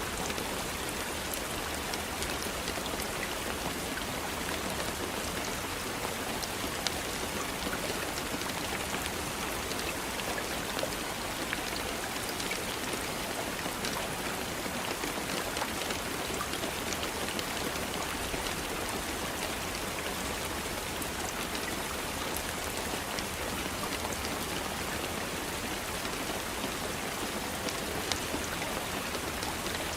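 Steady rain falling, with a dense patter of individual drops striking a surface and an occasional louder drop.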